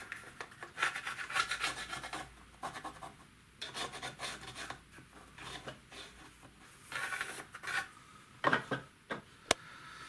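Pencil scratching as it traces around the foot of a model boiler, in several runs of short strokes. A couple of knocks and a sharp click near the end as the piece is handled.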